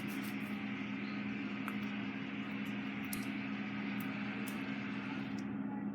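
A steady low hum with a hiss over it, and a few faint, soft clicks. The upper hiss drops away near the end.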